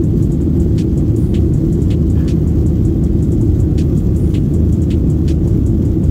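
Jet airliner cabin noise at a window seat: the steady, deep rumble of the engines and airflow during the climb after takeoff, with faint scattered ticks on top.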